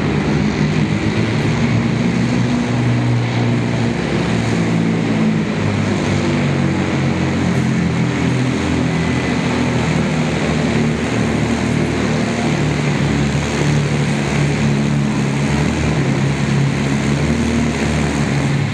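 Heavily modified diesel sport-class pulling truck under full throttle, dragging a weight-transfer sled: a loud, steady engine note held at near-constant pitch, with black smoke pouring from its exhaust stack.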